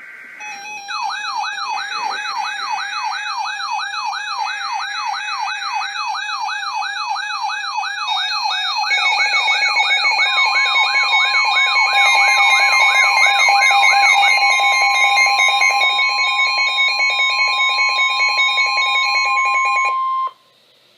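Weather-alert receivers going off for an incoming NOAA Weather Radio warning. Pulsed SAME data bursts come first, then a fast electronic siren whoop rising about three times a second, with high warbling and rapid pulsed beeping alarms layered over it. From about ten seconds in, the steady 1050 Hz weather radio warning tone sounds, and all of it cuts off together about a second before the end.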